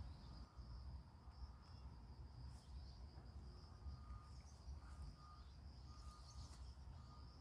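Faint rural outdoor ambience: a steady high-pitched insect trill over a low rumble, with a few faint short peeps.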